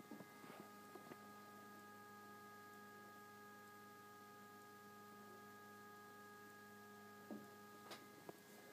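Faint, steady hum of a Plustek 35 mm film scanner's motor while it scans, made of several fixed tones. A few light clicks come near the start and again shortly before the end.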